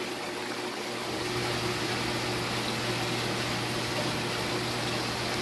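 Steady running-water hiss with a low electrical hum from saltwater aquarium pumps and circulation, growing slightly louder about a second in.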